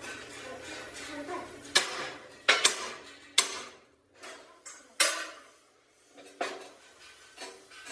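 Heavy steel parts of a tractor front axle clanking and knocking together as a cast steering knuckle is handled and fitted on the axle beam: a string of sharp metallic knocks at irregular intervals, each ringing briefly.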